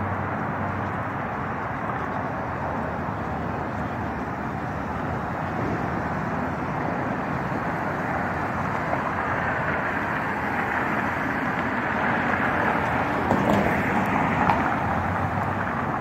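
Steady road traffic noise, with a car passing close by on the adjacent road and growing louder toward the end.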